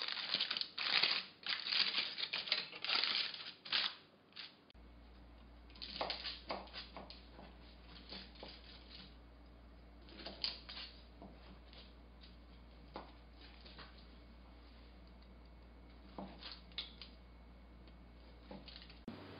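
Aluminium foil crinkling as it is handled, with dense crackles for the first few seconds. After that come scattered quieter crackles and a few single clicks over a steady low hum.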